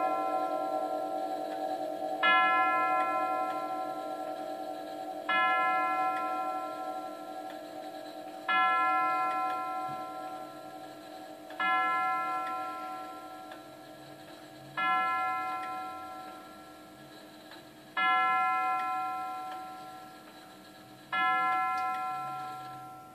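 Herschede nine-tube tubular grandfather clock striking the hour of ten, one tubular bell struck slowly at about three-second intervals. Seven strokes fall here, the last near the end, each ringing out and fading over the clock's ticking.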